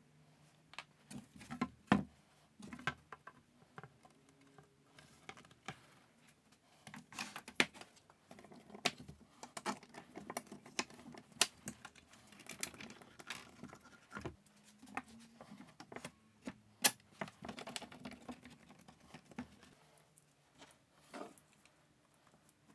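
Irregular clicks, light knocks and taps of wooden pieces and clamps being handled and set on a workbench during a spline glue-up, with a sharper knock about two seconds in and another near the end.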